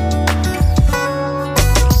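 Background music led by plucked guitar over a steady bass line.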